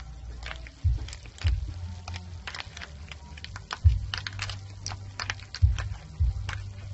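Snail shells clicking and clattering against each other and the metal pan as they are stirred in the frying pan, with several dull low thumps among the clicks.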